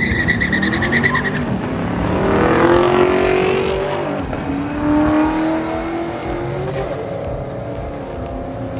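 Drag cars launching and accelerating hard down the strip, a high squeal at the start. Engine pitch climbs, drops back at gear changes and climbs again. The sound is loudest about three seconds in, then fades as the cars pull away.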